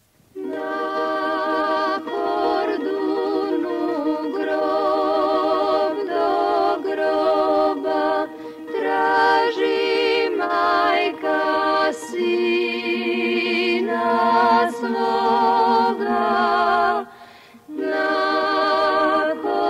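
Unaccompanied singing by several voices, held notes with vibrato in phrases broken by short pauses, with a longer break near the end.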